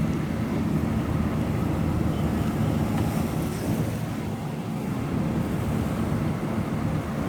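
Swarm of honey bees buzzing: a dense, steady hum.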